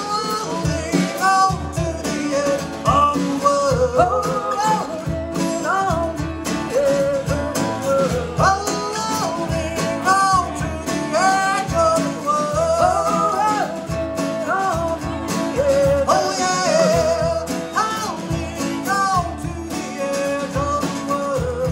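A live acoustic band plays an instrumental passage: two acoustic guitars over a small drum kit, with a lead melody line that bends and slides throughout.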